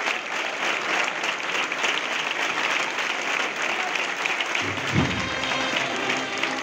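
Crowd applauding steadily. About four and a half seconds in, the accompanying band starts playing with heavy drum beats and sustained brass notes.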